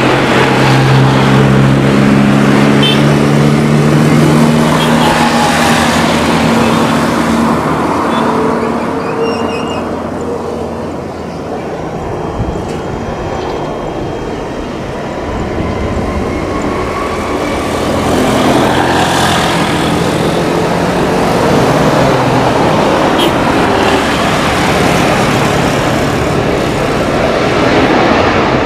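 Jet engines of an Airbus A330 running loud and steady as it moves along the runway before take-off, with a low hum under the roar. The sound dips for a few seconds in the middle and then builds again.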